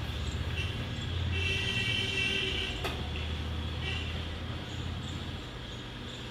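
A car engine running with a steady low rumble, and a car horn sounding once for about a second and a half, a farewell toot as the car sets off. A sharp click follows just after the horn, and the engine rumble fades about five seconds in.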